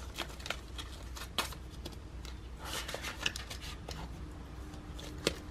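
Rustling of paper banknotes and a soft plastic zipper pouch as cash is slid into a binder's clear pouch and the pouch is closed, with scattered light clicks and a sharper click near the end.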